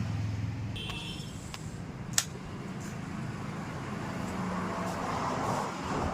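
TVS Raider 125's single-cylinder engine idling steadily, with a single sharp click about two seconds in.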